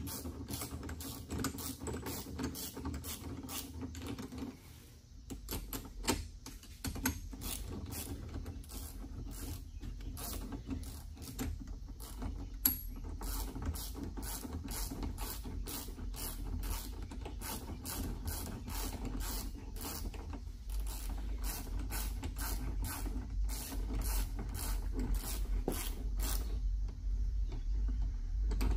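Hand socket ratchet clicking steadily, about three clicks a second, with a low hum growing louder near the end.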